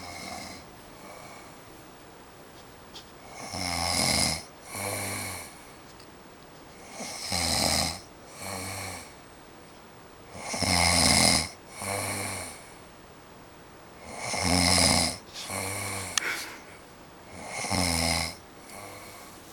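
A man snoring loudly in his sleep: five snores about three and a half seconds apart, each a loud snore followed at once by a shorter, quieter one.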